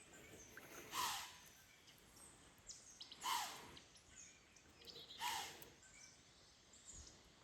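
A bird calling three times, about two seconds apart, each a short falling call over faint outdoor background.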